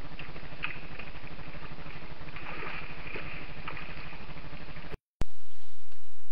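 Trail camera's own electrical hum and hiss, steady with a fine rapid pulse, with a few faint short high-pitched sounds near the middle. About five seconds in it cuts out briefly, then a louder, steadier hum from another camera's recording takes over.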